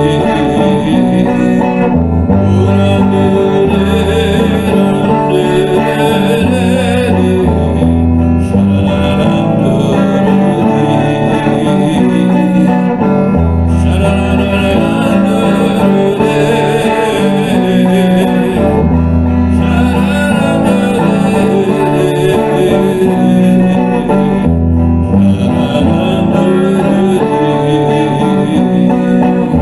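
Electric guitar playing a worship-song melody, with held bass notes underneath that change every second or two.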